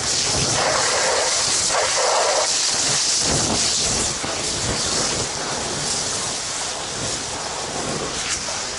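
Fire hose nozzle spraying a jet of water onto burning wood: a steady, loud hiss of the water stream and rising steam, easing slightly about four seconds in.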